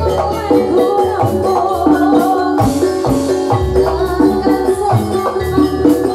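Javanese gamelan music accompanying a jathilan horse dance: metallophones playing a busy melody over repeated drum beats.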